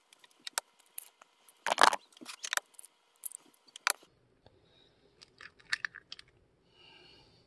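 Eggs being cracked open and emptied into a plastic mixing bowl one after another: a run of sharp shell cracks and clicks, the loudest about two seconds in, with a second cluster of cracks just before the last egg drops in.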